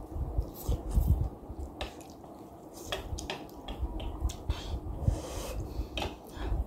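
Close-up mouth sounds of eating instant noodles: noodles drawn into the mouth from chopsticks near the start, then chewing with many wet clicks and lip smacks.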